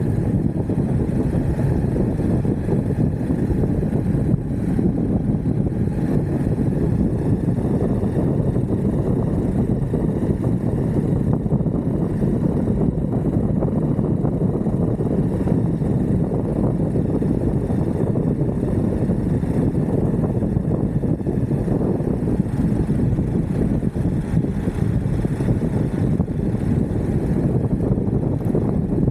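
Steady rushing noise of wind on the microphone mixed with the rumble of an Exway Atlas Pro 4WD electric skateboard's wheels rolling over the road at riding speed.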